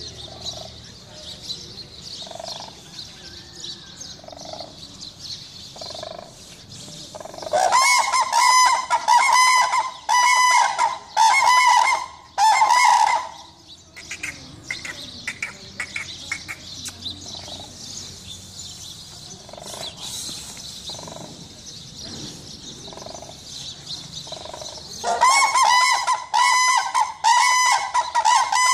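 A pair of cranes trumpeting in a unison call: loud, rapidly repeated honking notes. One bout starts about eight seconds in and lasts some five seconds, and a second starts near the end.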